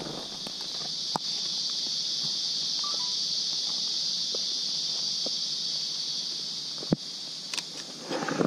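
An insect buzzing steadily at a high pitch, fading out near the end. A few light clicks, with a sharper knock about seven seconds in.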